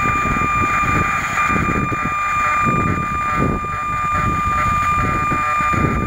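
Outdoor background noise: irregular low rumbling and buffeting under a steady, high-pitched electronic whine with a hiss.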